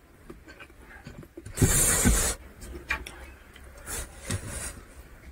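Close-up eating sounds: fingers gathering rice on a plate and chewing, with one louder rubbing scrape lasting under a second about two seconds in, then a few small clicks.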